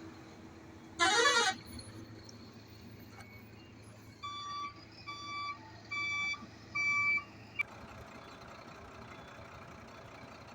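Heavy machinery engines running with a steady low hum. About a second in comes one short, loud, warbling horn toot, and midway through a vehicle's reversing alarm beeps four times, evenly spaced.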